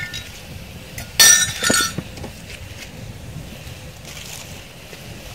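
Two quick ringing clinks, like hard glassware knocked together, about a second in and again half a second later, over a steady low rumble.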